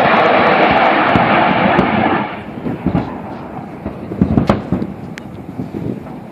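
Weapons fire from a military attack helicopter on a live-fire range: a loud, sustained crackling roar that cuts off about two and a half seconds in. Scattered bangs and thumps follow, from rounds or rockets striking the hillside.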